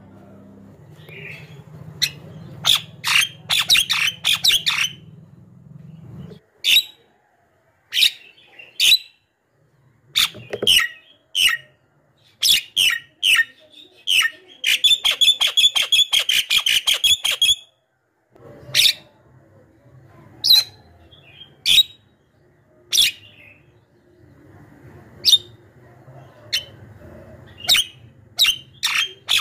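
Javan myna calling: a string of sharp, harsh notes and clicks at irregular spacing. About halfway through comes a fast rattling run of repeated notes that lasts nearly three seconds.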